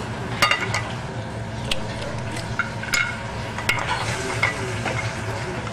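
Oyster shells clicking and scraping against a china plate as raw oysters are handled, a scatter of sharp clicks over a steady low hum and hiss.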